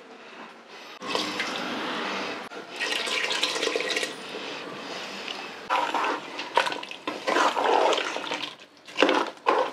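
Rinse water poured in a steady stream from a steel mixer-grinder jar into a pressure cooker of chicken curry, then, about halfway through, a ladle stirring and sloshing the thin curry in the pot.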